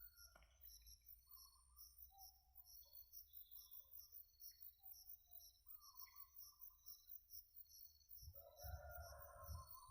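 Faint rural ambience: insects chirping in an even pulsing rhythm, with scattered short bird calls, and a rooster crowing near the end.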